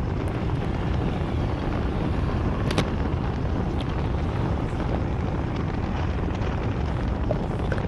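Steady wind rumble on the microphone and road noise from a moving vehicle, with one short click about three seconds in.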